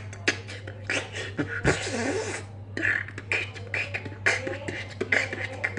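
Vocal beatboxing: a fast, irregular run of sharp mouth clicks and drum-like pops with hissed hi-hat sounds, including a longer hiss about two seconds in, over a steady low hum.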